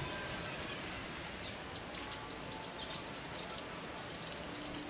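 Small birds chirping: many short, high chirps, coming thicker in the second half.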